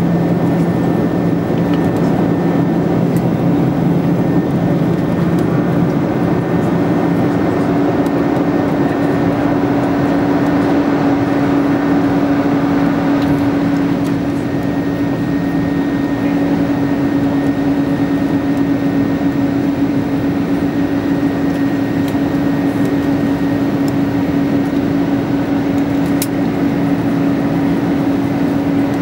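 Airbus A330-200 jet engine and airflow noise heard inside the cabin: a loud, steady roar during the climb. A low hum in it moves up in pitch about six seconds in.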